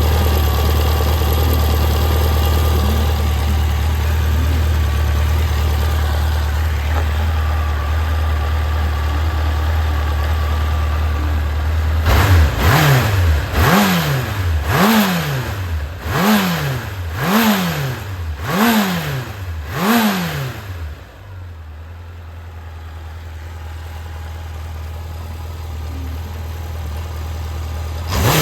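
Honda CB750F air-cooled inline-four engine idling steadily, then revved in a series of quick throttle blips, each rising and falling in pitch, before dropping back to a quieter idle. The engine is in running order and, by the seller's account, free of abnormal noise.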